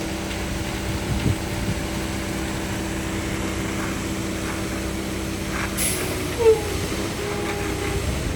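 An engine running steadily with a low hum that drops away about six seconds in, followed by a brief squeal.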